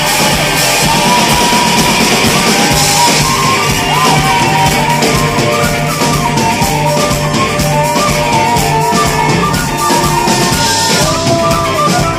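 A live band playing a traditional Irish tune: a tin whistle carries the melody with quick ornaments over electric guitar and drums.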